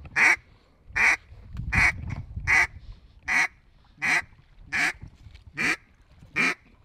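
A duck call blown in a steady series of single quacks, nine evenly spaced calls about one every three-quarters of a second.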